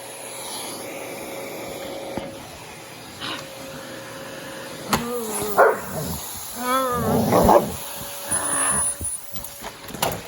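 Vacuum cleaner running with a steady hum, while a black Labrador retriever playing at it gives two short whining barks about halfway through.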